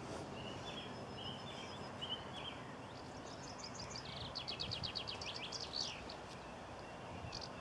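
Birds singing over a steady outdoor background hiss: a few short chirps in the first seconds, then quick runs of rapid high repeated notes from about three to six seconds in.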